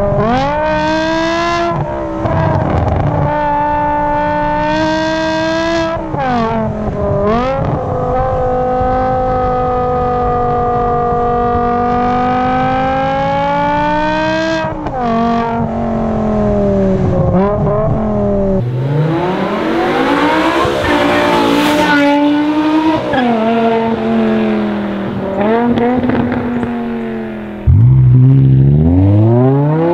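BMW E60 M5's S85 V10 under hard acceleration, heard at the tailpipes of its RPI exhaust. The engine note climbs with the revs, drops sharply at each gear change and climbs again, several times over. Near the end it is louder, with a steep rising rev.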